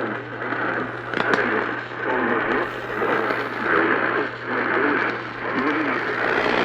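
AM radio reception: a muffled voice that is hard to make out, over a steady hum, with a couple of sharp static crackles about a second in.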